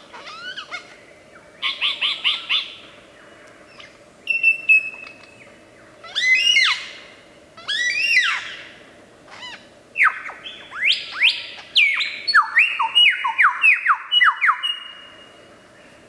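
Lyrebird singing a varied run of loud whistled phrases: arching, sweeping notes, a quick burst of repeated notes, and near the end a fast cascade of downward-sliding whistles.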